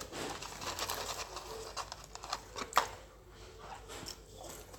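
Close-up eating sounds: a person chewing French fries, with wet mouth clicks and small crackles and one sharper click a little under three seconds in.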